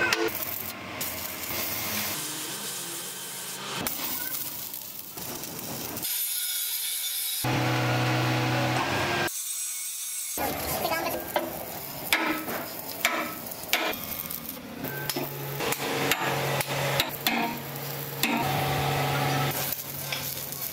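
A string of steel-working sounds that change abruptly every few seconds: an angle grinder grinding steel, and an arc welder crackling, with scattered sharp metal knocks.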